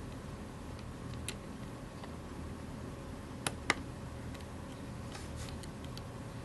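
Small scattered clicks of a screwdriver and grip screws being handled while the grip panel screws of a metal CO2 air pistol are put in. Two sharper clicks come close together about halfway through.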